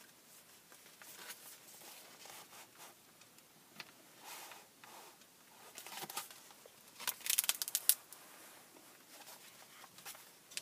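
Paper pages of a journal being flipped and turned by hand: faint, scattered rustles, with a louder flurry of quick page flicks about seven seconds in.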